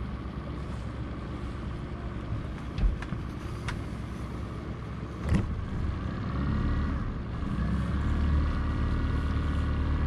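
Boat motor running steadily, with a few sharp knocks. About six seconds in, it grows louder and a higher steady tone joins it.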